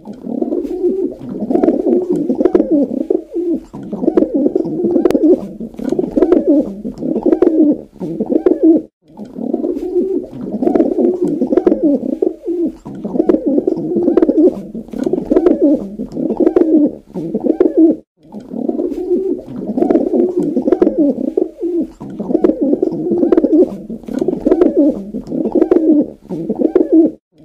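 Pigeon cooing in repeated low phrases, breaking off briefly about nine and eighteen seconds in.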